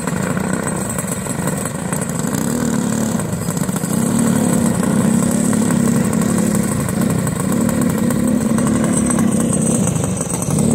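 Several racing go-karts' small single-cylinder engines, among them a Tillotson 196R running on alcohol, lapping the track; their pitch keeps rising and falling as they rev down the straights and back off into the turns, and they get louder about four seconds in.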